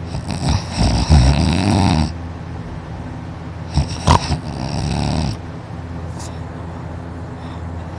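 A sleeping person snoring loudly: two long snores, the first about two seconds long and the second about a second and a half, a couple of seconds apart.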